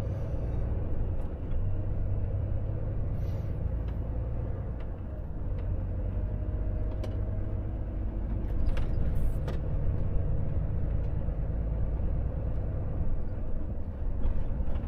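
Volvo FH truck's diesel engine and road noise heard from inside the cab: a steady low rumble as the truck gathers speed at low speed, getting slightly louder about eight seconds in.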